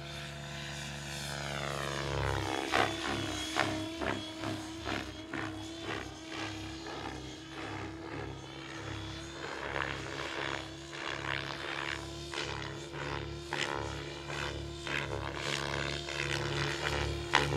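Radio-controlled model helicopter flying aerobatics, its rotor note sliding in pitch, then a run of sharp blade chops as it tumbles, over music with a bass line.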